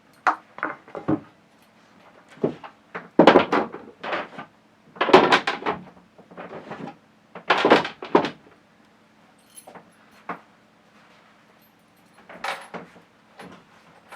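A series of irregular knocks, bangs and rattles, as of hard objects being handled and set down, with a faint steady hum underneath.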